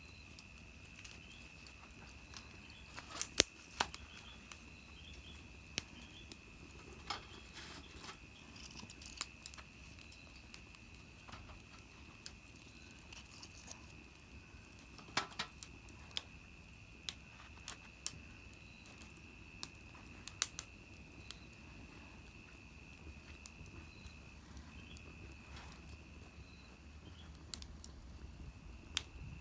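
Small wood fire in a mini fire stand crackling, with irregular sharp pops and snaps, a few louder ones about 3, 15 and 20 seconds in. A steady high-pitched insect trill runs behind it, breaking off briefly twice near the end.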